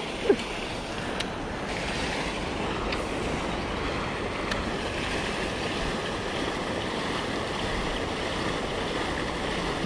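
Steady wind noise buffeting the microphone, with one brief knock just after the start.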